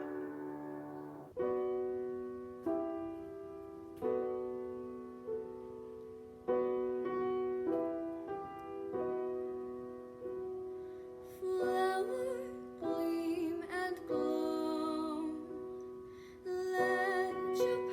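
Piano playing slow chords, each struck and left to ring, with a female voice beginning to sing over it about halfway through.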